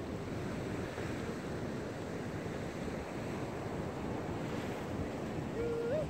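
Ocean surf washing steadily. Near the end a short call holds one pitch, then slides upward.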